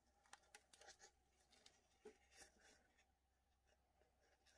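Faint rustling and light crackling of dry sphagnum moss and a thin plastic deli cup being handled by fingers, in short scattered scratches.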